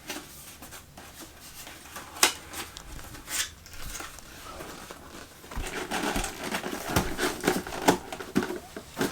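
Cardboard being folded and pushed into slots by hand: a few sharp clicks, then busier rustling and crinkling in the second half.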